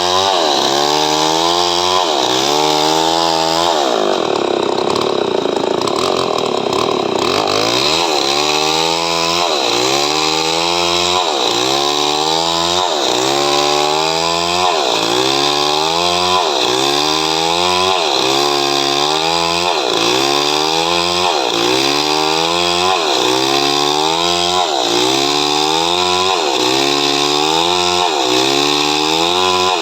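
Chainsaw cutting coconut wood, its engine running loud under load with the pitch rising and dropping in a regular cycle about once a second. About four seconds in, the cycle breaks for roughly four seconds before resuming.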